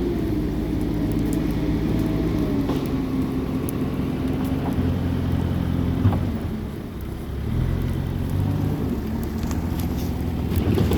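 An engine running with a steady hum. Its pitch drops a little about two seconds in, it fades around the middle, then it picks up again. Faint scattered crackles of a wood campfire sound alongside it.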